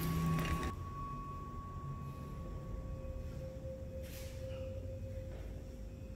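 Two steady, pure ringing tones: a higher one fades out about three seconds in, and a lower one comes in about two seconds in and holds. Faint low rumble runs beneath, with a brief faint hiss about four seconds in.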